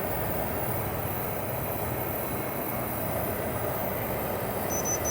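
Hisense dehumidifier running, its fan blowing air with the compressor on, a steady noise. Near the end a quick run of short, high electronic beeps from its control panel as its settings are changed.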